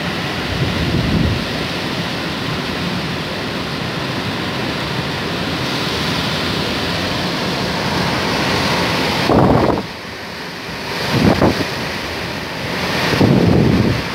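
Cyclone wind blowing hard through palm and other trees: a loud, steady rushing, with heavy gusts buffeting the microphone about a second in and three more times in the last five seconds.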